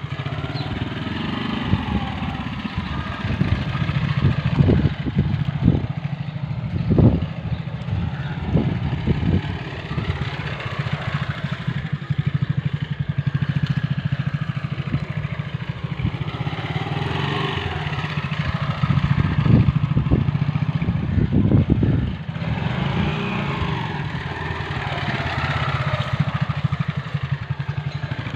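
Small commuter motorcycle engine running at low speed as it is ridden slowly in tight circles, the throttle opened in short bursts now and then.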